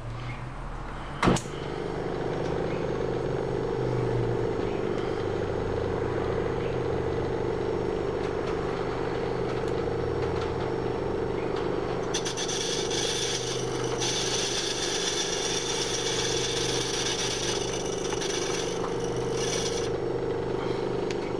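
A tiny metal lathe is switched on with a click about a second in, then its motor runs with a steady hum. From about halfway to near the end a higher hiss joins it as the tool takes a fine cut on the spinning cylinder cover.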